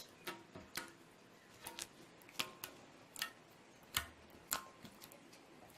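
Homemade glue-and-borax slime clicking as it is squeezed and folded in the hands: about ten sharp clicks at irregular intervals, the sound of trapped air pockets popping, which is what the slime 'click test' listens for.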